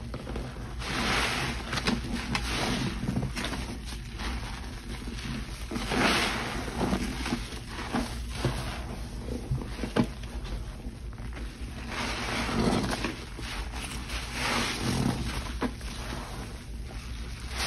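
Frothy, soapy cleaning solution of Pine-Sol, Lestoil and Murphy's Oil Soap in water being swished and sloshed, rising in surges every second or two, with a few light knocks.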